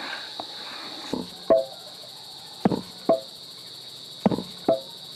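Pestle pounding purple sticky rice in a stone mortar: knocks in pairs, three pairs about a second and a half apart, the second knock of each pair with a short ring. A steady high insect drone runs behind.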